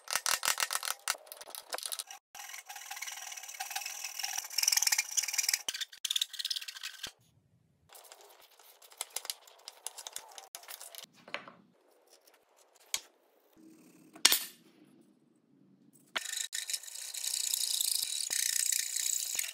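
Hand tools cutting a wooden beam. Rasping cutting strokes fill the first seven seconds. In the middle there is quieter chisel paring and a few taps, with one sharp knock about fourteen seconds in. A handsaw then saws steadily through the last three seconds.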